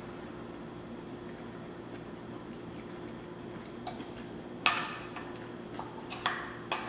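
Quiet eating sounds over a steady low hum: a handful of short clicks and scrapes, from about four seconds in, as a plastic fork works at a glass casserole dish between mouthfuls of spaghetti.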